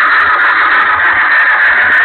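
An OO gauge model train running, heard from its onboard camera: a steady, hissy rush of wheels on rails and motor, with no rhythm or change.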